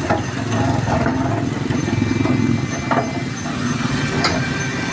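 A machine's motor running steadily with a low, fast-pulsing hum, with a few sharp clicks or taps over it.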